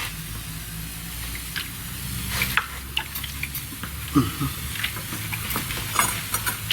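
Masonry work on brick and mortar: scraping and stirring noise with a few light clicks and knocks, over a steady low hum that fades after about three seconds.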